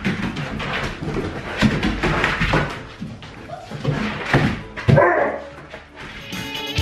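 Adult huskies play-fighting: a run of short barks and growly vocal bursts, with one drawn-out, wavering call about five seconds in. Music starts just before the end.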